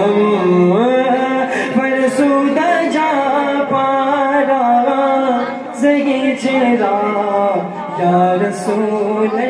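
A man singing a naat (devotional Urdu/Persian song in praise of the Prophet) in a chant-like melody, with long held notes that bend and slide between pitches.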